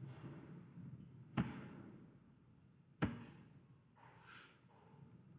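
Two sharp computer mouse clicks about a second and a half apart, each with a short fading tail, over a quiet room; a faint breath near the end.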